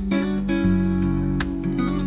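Instrumental music led by strummed acoustic guitar.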